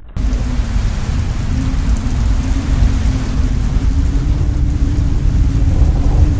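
Heavy thunderstorm rain and wind noise, loud and steady, starting abruptly about a fifth of a second in, with a steady low hum underneath.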